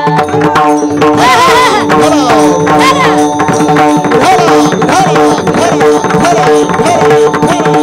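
Devotional kirtan accompaniment: a harmonium holds steady notes while a hand drum plays a running rhythm.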